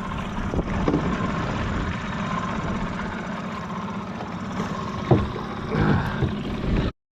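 Small outboard motor on an aluminum rental boat running steadily, with a few brief louder knocks or sounds about five to six seconds in. The sound cuts off abruptly near the end.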